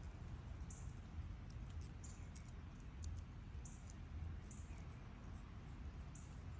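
Quiet garden ambience: a steady low rumble with short, high chirps about once every second or two.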